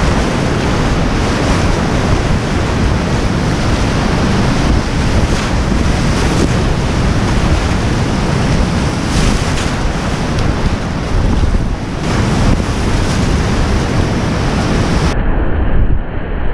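Whitewater rapids rushing loudly and steadily around a kayak, heard from a camera on the boat, with wind on the microphone and a few brief splashes. About fifteen seconds in the sound turns duller, losing its hiss.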